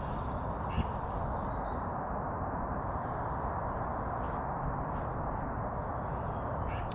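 Steady outdoor background rush beside the lake, with a small bird's thin, high call a few seconds in that stutters and steps down in pitch.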